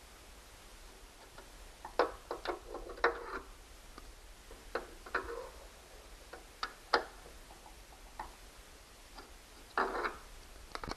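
Irregular sharp clicks and knocks, in small clusters, of a hand screwdriver and tools at work on a tight screw in a treadmill's frame.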